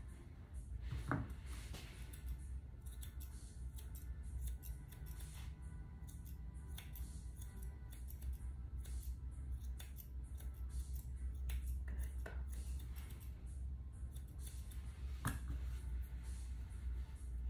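Grooming shears snipping repeatedly through a dog's coat in quick, irregular cuts, over a steady low hum.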